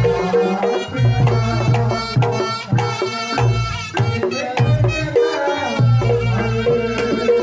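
Reog Ponorogo gamelan music: kendang drums beat heavy, regular strokes under a steady ringing gong tone and a wavering high melody line.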